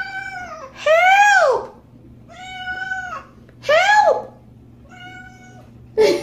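Cat meowing five times in drawn-out, rising-then-falling cries, the second and fourth the loudest.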